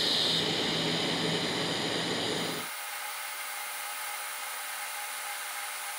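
DC TIG welding arc on carbon steel, a steady hiss with a faint hum under it. About two and a half seconds in, the sound turns abruptly thinner, with the low end gone, as the welding is shown sped up.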